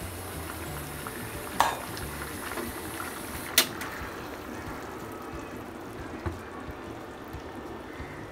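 Fish curry bubbling at a simmer in a pan, with a spatula knocking against the pan twice in the first half; the second knock is the sharper and louder. The bubbling fades over the second half as the stove is switched off.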